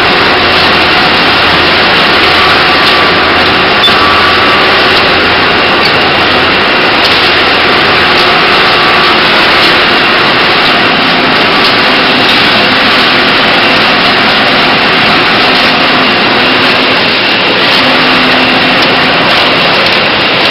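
Tyre recycling machinery running in a factory: a loud, steady mechanical din. A low hum under it drops away about seven seconds in.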